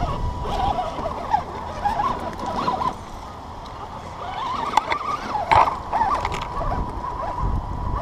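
Axial Deadbolt 1/10-scale RC crawler's stock brushed electric motor whining up and down with the throttle as it crawls over rocks, with a few sharp knocks of tyres and chassis against the rock.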